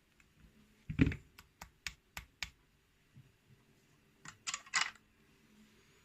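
Light metallic clicks of small lock pins from a gutted euro cylinder being handled and sorted. A knock comes about a second in, then a quick run of about five light clicks, then a short cluster of clicks near the end.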